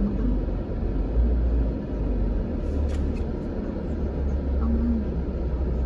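Steady low rumble of a car's engine and tyres while it is driven slowly along a street, heard from inside the cabin.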